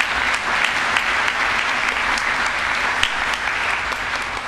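Congregation applauding: dense, steady clapping that starts to thin out near the end.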